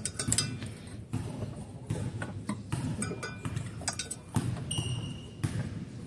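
Hands handling electrical wires and plastic wire nuts against a sheet-metal evaporator housing: scattered light clicks, taps and rustles over a low steady hum.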